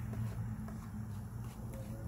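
A utensil lightly tapping and scraping on a steel flat-top griddle as onions are worked into hash browns, over a steady low hum.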